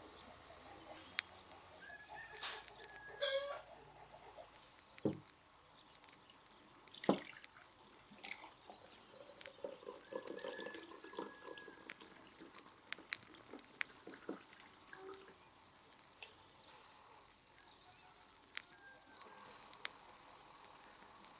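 Cherry compote poured from a glass jar into a clay mug about ten seconds in, among scattered light clicks and knocks, with birds chirping in the background.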